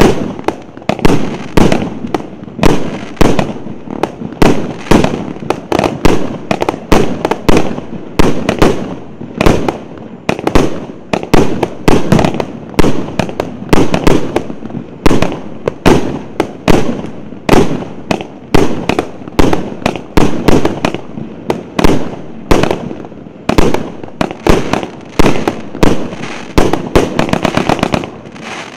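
A 49-shot, 1.2-inch consumer firework cake (Р9102 "Витязь") firing shot after shot in a steady run of sharp bangs, more than one a second, with crackling between them as the stars burst.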